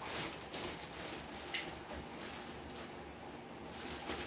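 Soft rustling and handling noises as merchandise is handled, with a few short scuffs and one sharper click about a second and a half in.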